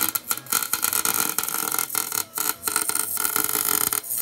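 Wire-feed (MIG) welder arc crackling steadily as it welds the spider gears of a BMW E36 differential solid, locking the diff. The crackle breaks off briefly a couple of times as the welder restarts the bead.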